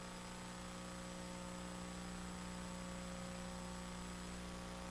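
Steady electrical mains hum with a faint hiss from the microphone's sound system, with no other sound over it.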